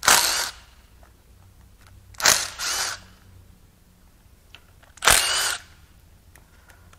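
Power tool zipping out the timing cover bolts on an SR20DET engine in short bursts of about half a second, four times. Each burst starts sharply with a rising motor whine.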